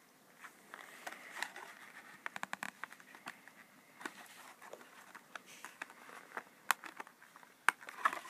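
Clear plastic blister pack and cardboard backing card of a toy being handled and pulled at by hand: a string of small crackles and clicks, with a quick flurry about two seconds in and a couple of sharper clicks in the last two seconds.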